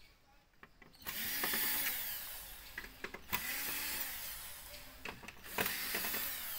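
Electric screwdriver running on screws in a TV's sheet-metal chassis, in three runs with short pauses, its motor pitch rising and falling as each screw turns.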